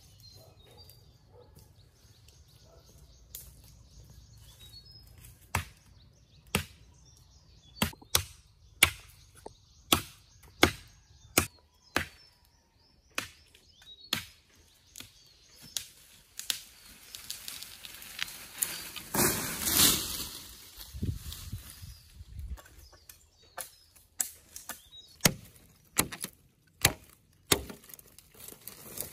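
A machete chopping into thin sapling trunks: sharp single strokes about one a second starting about five seconds in, coming faster, about two a second, near the end. About two-thirds of the way through, a louder rushing crash of leaves and branches as a cut sapling comes down.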